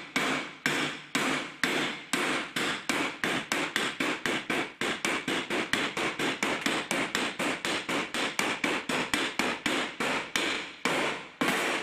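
Hammer blows on a front hub upright, driving it down onto a Gaz coilover strut tube, metal struck on metal. The strikes come about two a second at first, then quicken to a rapid run of about four a second, with a few slower blows near the end.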